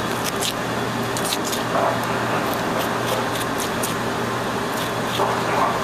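A small spoon scraping the fuzzy choke fibres out of a globe artichoke's bottom, heard as a few light scrapes and clicks. A steady background hum runs under it.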